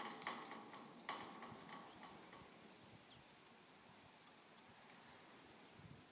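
Faint outdoor background with two short sharp knocks, about a quarter of a second and about a second in, then only a faint steady hiss.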